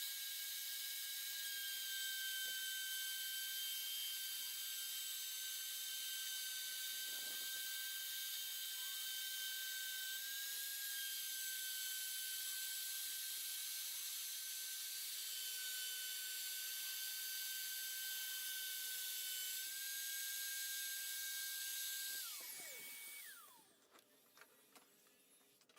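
Router spindle on a Bob's E3 CNC router running at a steady high whine while it cuts, with a vacuum cleaner running on the dust shoe. Twenty-odd seconds in, both motors switch off and spin down one after the other, their pitch falling away.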